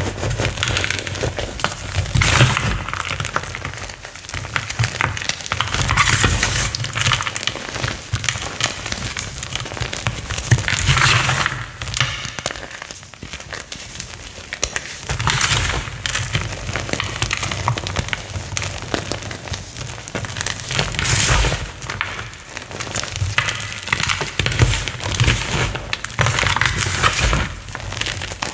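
Crunchy chalk being crushed and crumbled close to the microphone, a dense crackling crunch that swells into louder surges every few seconds, with a low handling rumble beneath.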